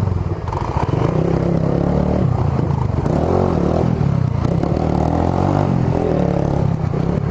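Suzuki GSR 150i's single-cylinder engine running through a Roncar SS Oval aftermarket exhaust on the move, its revs rising and falling a few times.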